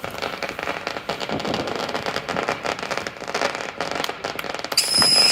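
Consumer fireworks crackling rapidly. About four and a half seconds in, a Piccolo Pete whistler starts up: a loud shrill whistle in several tones that slowly fall in pitch.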